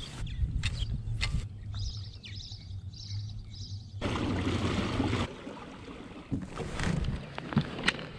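Fishing kayak moving on the water: a low steady hum, with water noise swelling about four seconds in. A few sharp clicks sound over it, and small birds chirp in the background.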